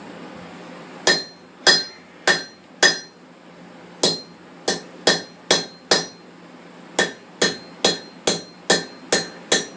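Blacksmith's hand hammer striking hot steel on a hot cut at the anvil, cutting through the bar. The blows ring and come about two a second, in three runs of four, five and seven strikes with short pauses between.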